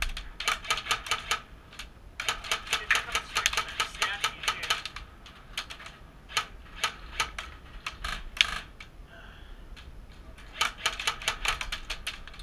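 Airsoft guns firing in rapid bursts of sharp shots, a few lasting one to three seconds, with single shots between them.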